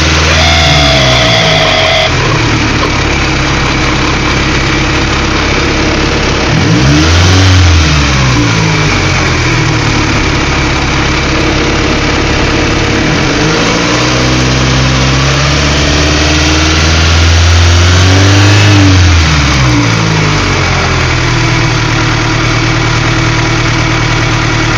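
Honda B16A 1.6-litre four-cylinder engine running near idle, its speed swinging up and back down twice, with a short steady whine about a second in. The engine has an idle problem.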